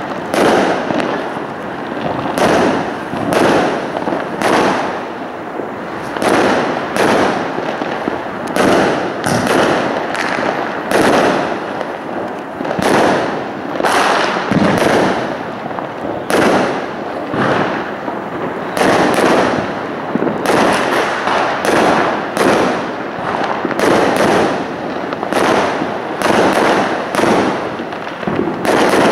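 Aerial fireworks bursting in a steady barrage: a bang every second or so, with crackle between.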